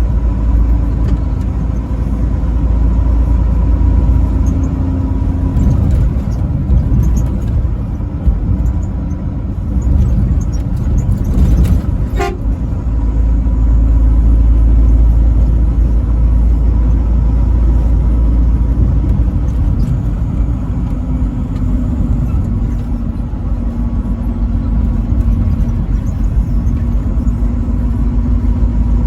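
Truck driving at highway speed: steady low road and engine rumble, with a faint steady tone running under it and one sharp click about twelve seconds in.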